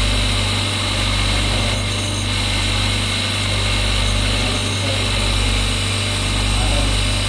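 Electric motor of a lapidary grinding wheel running steadily, with a strong low hum.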